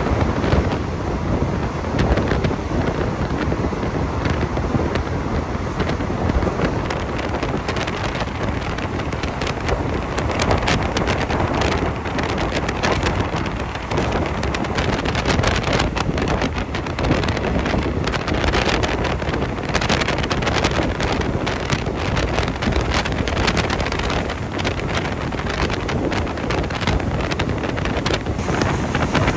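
Wind buffeting a microphone held out of a moving passenger train's window, over the steady running noise of the train on the rails.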